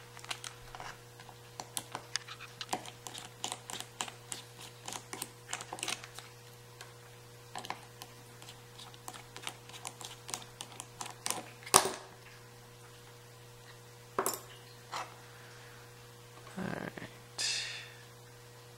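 Small metal clicks and ticks as screws are worked out of a padlock's steel body during disassembly. The clicks come several a second at first, then thin out, with a sharper click about halfway through.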